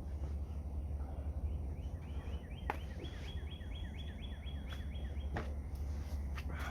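A songbird singing a rapid series of short, repeated falling notes, about five a second, for a few seconds, over a steady low rumble, with a couple of sharp clicks.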